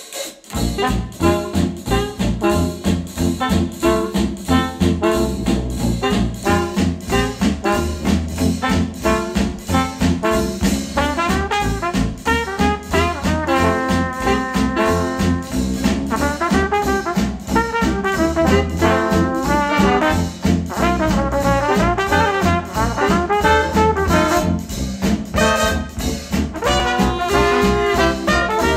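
Retro jazz track with brass melody lines over a steady beat, played back through KEF R3 bookshelf speakers.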